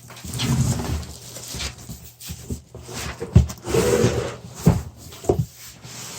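A large PC case being worked out of its cardboard box: foam packing and cardboard scraping and squeaking against each other, with three sharp thumps in the second half as the case knocks against the box.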